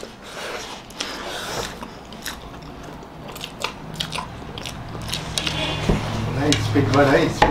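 Wet smacking, slurping and chewing of soft cream cake eaten face-first off a plate without hands, a quick run of short smacks and clicks. Near the end a voice is heard over the eating.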